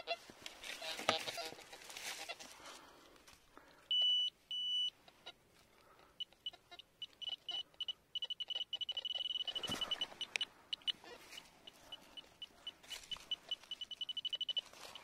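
Metal detector beeping: two short steady beeps about four seconds in, then quick high pulses that run into a held tone and speed up again near the end, the detector signalling a metal target close by. Noisy rustling in the first few seconds and a single knock about ten seconds in.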